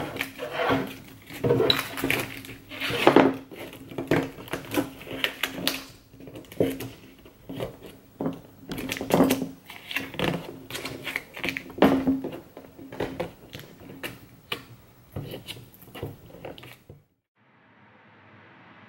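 Hard plastic car interior trim piece being handled and pressed on a wooden workbench: irregular clicks, taps and knocks with short pauses. The sound cuts off suddenly near the end, leaving a faint steady hiss.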